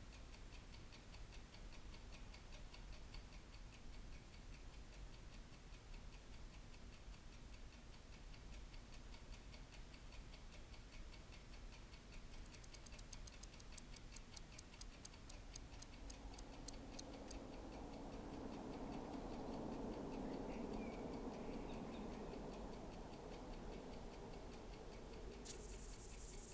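Faint, even ticking of mechanical watch movements, with a louder run of ticks about halfway through. A low hum swells in after that, and a sudden hiss starts just before the end.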